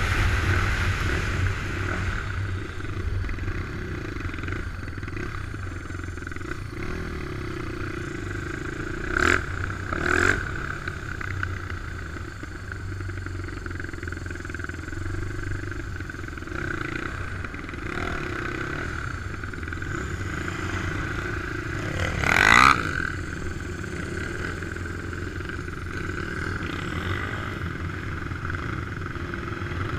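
Racing ATV engine running, quieter over the first few seconds as the quad slows from a run on ice, then running steadily at low speed. There are two short, sharp louder sounds about nine and ten seconds in, and a brief rev that rises in pitch about three-quarters of the way through.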